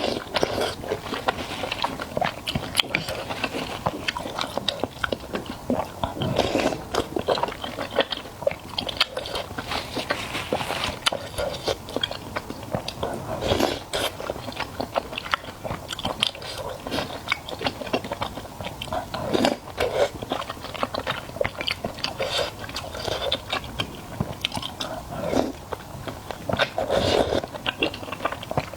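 Close-miked eating sounds: a person biting and chewing food with crisp crunching, in irregular bursts of small clicks and crackles.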